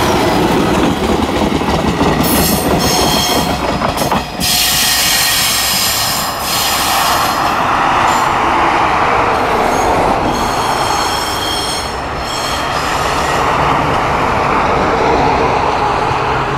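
Moka Railway Moka-14 diesel railcar running past and pulling away, its engine and wheels making a steady rumble. Twice the wheels give out a high squeal, about two seconds in and again about ten seconds in.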